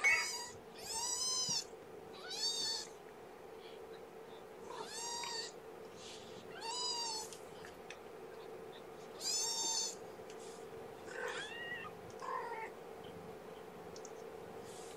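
Two-and-a-half-week-old kittens mewing: a string of about eight high-pitched, arching cries, each about half a second long and coming every one to three seconds.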